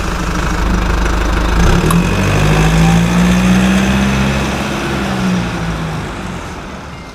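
Motorcycle engine running on the move, with rushing wind noise. The engine note rises about two seconds in and holds, then fades as it eases off toward the end.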